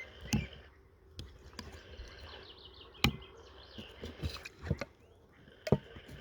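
Irregular sharp knocks and clicks, the loudest about three seconds in, with birds chirping faintly.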